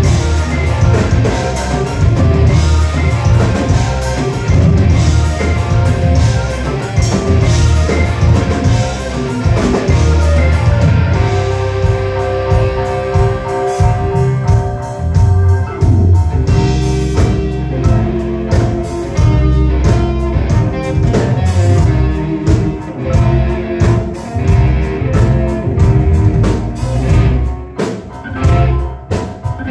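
Live rock band playing loud: electric guitar, bass and drum kit together, with a stretch of long held notes in the middle.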